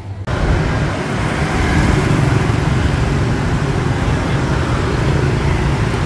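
Steady road traffic noise that starts abruptly just after the beginning and holds at an even level.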